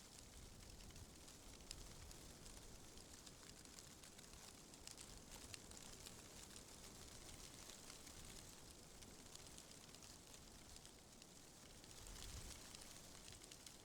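Faint wind rustling tree leaves: a soft, even hiss full of fine crackles, with a low wind rumble that swells briefly about twelve seconds in.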